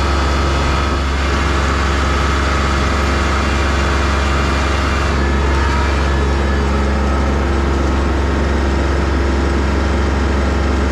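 Kubota L3301 tractor's three-cylinder diesel engine running steadily.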